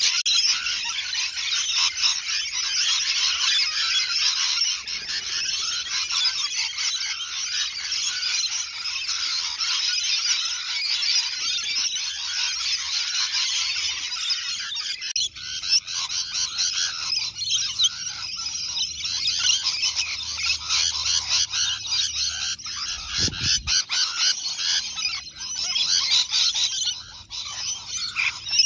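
A large flock of rainbow lorikeets chattering and screeching together in a dense, continuous high-pitched din, with a brief break about halfway through.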